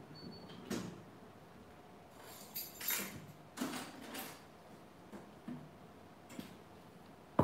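Jewellery display trays being handled and set down on a table, making a few scattered light knocks and clatters, the loudest around three seconds in.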